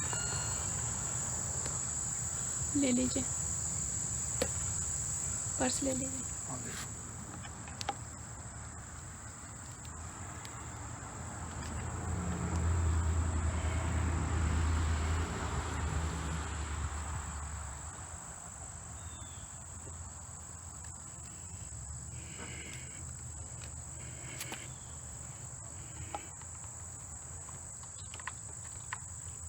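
Steady high-pitched insect chorus trilling throughout. A few brief clicks come about 3 and 6 seconds in, and a low rumble swells and fades in the middle.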